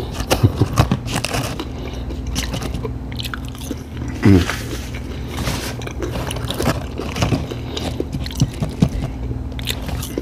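Close-up chewing and crunching of food, with many short wet clicks from the mouth over a steady low hum. About four seconds in, one short sound falls in pitch.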